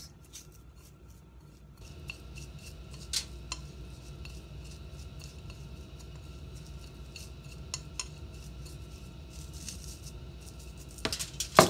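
Fingers mixing chopped coriander and cumin on a ceramic plate, with scattered light clicks and taps of a metal utensil against the plate over a steady low hum. Near the end comes a louder clatter of metal and crockery.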